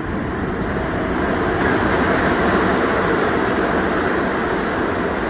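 Kawasaki R62 subway train running through a tunnel, heard from inside the front car: a steady rumble of wheels on rail that grows a little louder after a second or two.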